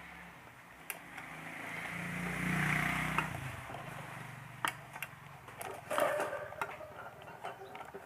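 Hands handling a stand fan's plastic rear switch housing and its wiring, giving a run of sharp clicks and light rattles in the second half. Before that, a low hum swells over a few seconds and then stops abruptly.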